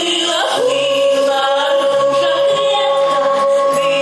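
Two women singing a Belarusian folk song as a duet. A long, steady note is held from about half a second in.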